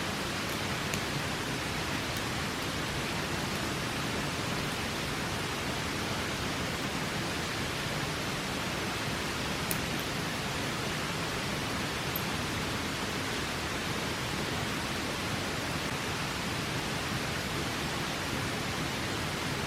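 Steady rush of a river, with a few faint sharp pops from a crackling campfire, the clearest about ten seconds in.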